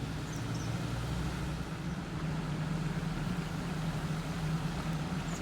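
Car engine and road noise: a steady low hum as the car drives along, with a faint short bird chirp near the start.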